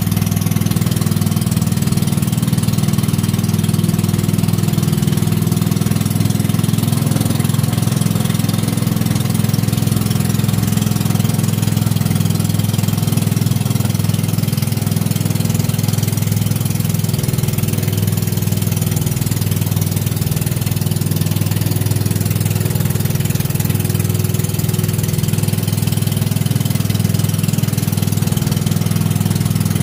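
Motorized outrigger boat's engine running steadily as the boat cruises, heard from on board, with an even hiss over it.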